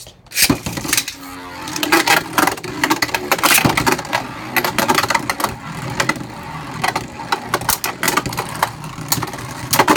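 Two Beyblade Burst spinning tops, Hasbro plastic Vise Leopard and Surge Xcalius, whirring and clashing in a plastic stadium, with a rapid, irregular stream of sharp clicks and clacks as they hit each other.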